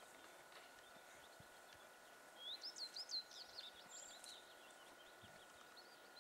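A small bird singing a quick run of high, sweeping chirps from about two and a half seconds in, lasting about two seconds, over faint open-air hiss. A thin steady tone runs underneath throughout.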